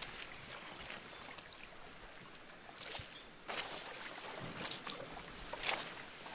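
Choppy seawater lapping and splashing against the hull of a small boat under way, in irregular splashes a second or so apart. It gets a little louder about halfway through.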